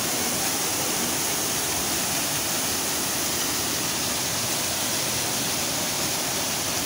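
Mountain creek rushing steadily over boulders and down a small rocky cascade.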